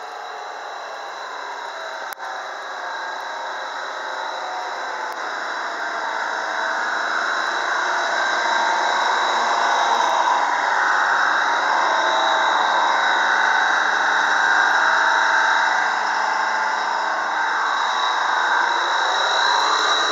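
A vehicle running, with a steady rushing hum and a thin high whine. It grows louder over the first half, with a brief dropout about two seconds in.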